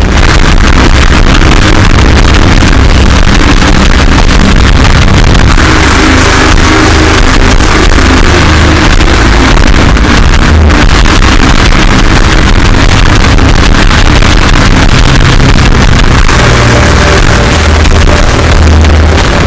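Gorenoise music: a loud, unbroken wall of harsh distorted noise over a heavy low rumble.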